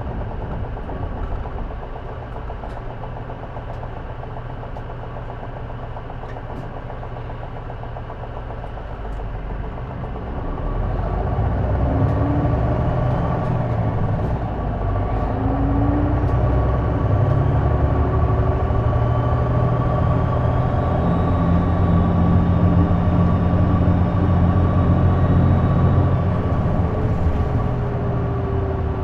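Onboard running sound of a J-Bus city bus: its diesel engine runs lower at first, then grows louder and heavier about ten seconds in, with a steady thin whine over the rumble. The uploader says this bus makes an unexplained noise from around the exhaust or turbocharger.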